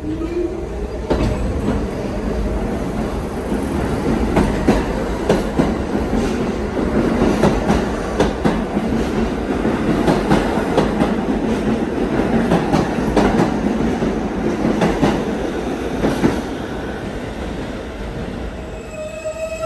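New York City subway N train running on the rails: a steady rumble with many sharp clicks of the wheels over rail joints, getting a little quieter after about three quarters of the way through.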